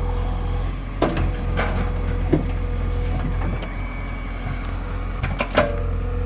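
Diesel earthmoving machinery running steadily with a low rumble, with several sharp metallic clanks and knocks: a pair about a second in, one near the middle and two close together near the end.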